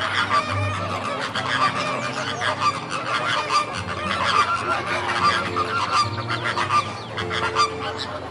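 A flock of flamingos calling: a dense, continuous chorus of short goose-like honks overlapping one another.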